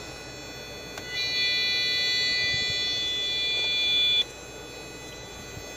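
Motherboard buzzer giving one long, steady, high-pitched beep of about three seconds that starts about a second in and cuts off suddenly. The board is stuck at status code 77 and the buzzer keeps sounding, a fault that a firmware update later cured.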